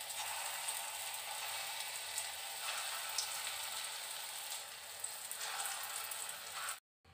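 Small portions of ground matar dal (split pea) batter sizzling steadily in hot oil in a kadai as dal pakoras deep-fry, with faint crackles. The sizzle cuts off suddenly near the end.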